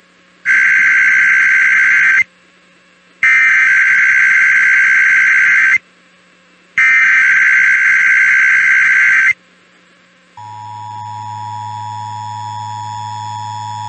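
Emergency Alert System SAME header: three loud bursts of warbling digital data tones, each about two seconds long with short gaps between. They are followed by a steady two-tone EAS attention signal lasting about four seconds, which marks the start of a required weekly test.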